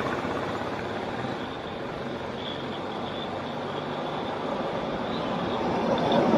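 Bajaj RE auto rickshaw's single-cylinder engine running. It grows softer through the first couple of seconds, then louder again toward the end.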